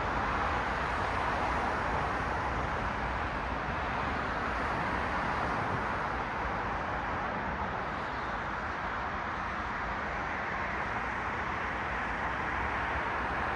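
Street traffic: cars passing, a steady hiss of tyres and engines that dips a little midway and swells again near the end.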